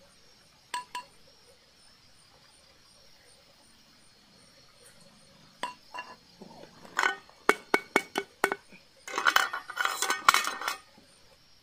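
Camping pan and its clip-on pan gripper clinking against the metal pot supports of a small portable gas stove. Two light clinks come about a second in; after a pause there is a run of sharp ringing clinks, ending in a dense metallic rattle near the end.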